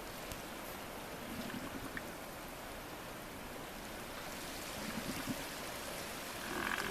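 Elephant seals calling to each other over a steady wash of wind and surf: two faint low calls, then a louder call near the end.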